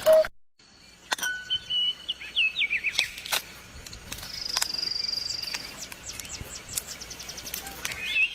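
Birdsong: assorted short chirps and down-slurred notes, a long thin high whistle held for about a second and a half midway, and a quick run of high ticks near the end.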